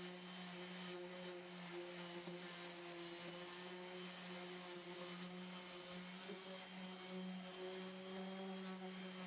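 Electric oscillating sander running steadily with an even, unbroken hum as its pad sands a fiberglass bondo patch on a boat hull.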